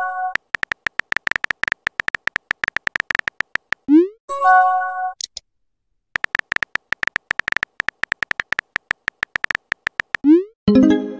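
Rapid phone-keyboard typing clicks from a chat-app animation, interrupted twice by a message-send sound effect: a short rising swoop followed by a brief electronic chime.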